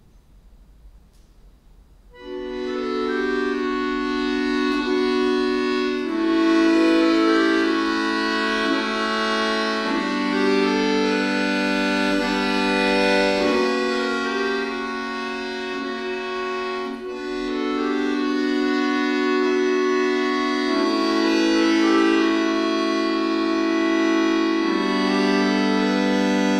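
Chromatic button accordion played solo, starting about two seconds in with full held chords that change every few seconds.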